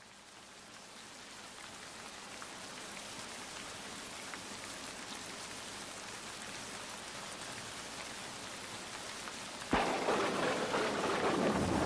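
Steady rain pattering down, fading in at the start. About ten seconds in, a sudden loud crack of thunder breaks in, and a louder rumble carries on to the end.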